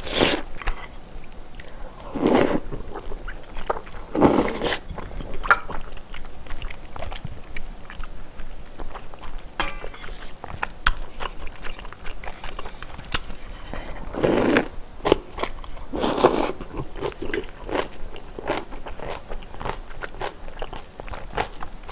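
A person eating spicy seafood kalguksu (knife-cut noodles) close to the microphone: five short, loud slurps spread through the stretch, with wet chewing and mouth smacking between them.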